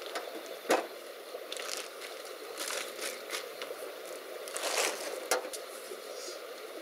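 Fabric and plastic rustling with a few clicks and knocks as a folded stainless-steel Firebox camp stove is pulled from its cloth storage pouch and plastic bag, over a steady background hiss. The sharpest knock comes about a second in.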